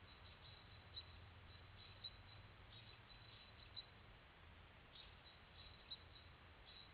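Near silence: a faint steady hiss with a few faint, short, high-pitched chirps scattered through it.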